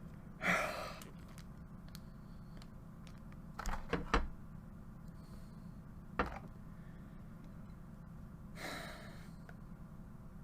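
A packet being handled over a low room hum: a few soft knocks and clicks, and two short breaths, one near the start and one near the end.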